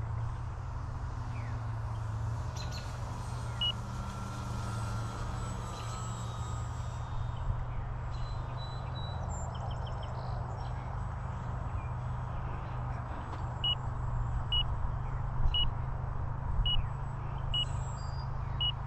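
Wind rumbling on the microphone. From about two-thirds of the way in, an RC transmitter's flight timer beeps about once a second, signalling that the set flight time is up.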